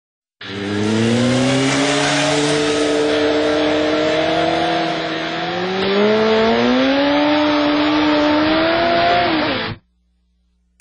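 Motorcycle engine running at high revs under a hiss of exhaust and wind noise. Its pitch climbs slowly in two steps over about nine seconds, then cuts off suddenly.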